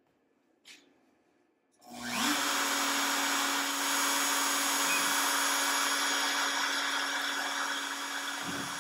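Makita RT0701C compact router on a CNC machine switching on about two seconds in, spinning up with a short rising whine and then running steadily at speed, its V-bit not yet cutting into the wood.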